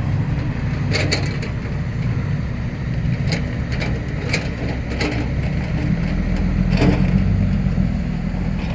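Heavy diesel engine running steadily with a low rumble, with a few short sharp knocks scattered through it.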